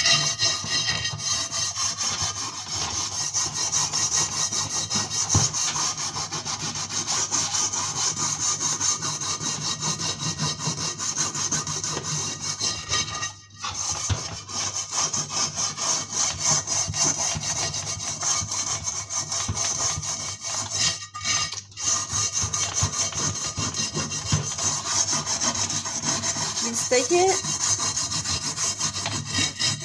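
Rapid back-and-forth scrubbing of a greasy frying pan, a continuous rasping rub with two brief pauses. The softened grease is coming off easily.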